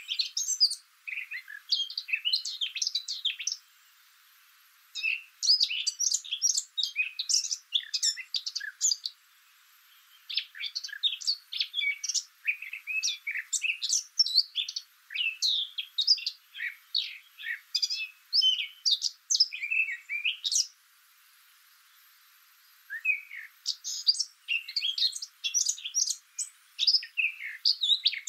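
Small birds chirping and trilling in quick, overlapping calls, with a few short pauses. The sound is thin, with no low end at all.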